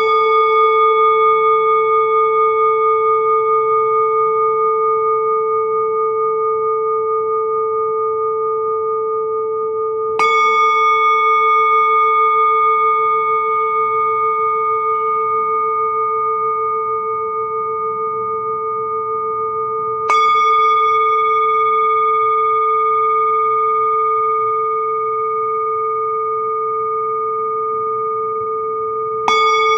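Singing bowl struck four times, about ten seconds apart. Each strike rings on in a long, steady, layered tone with a slow wavering pulse. The low hum carries over from one strike into the next.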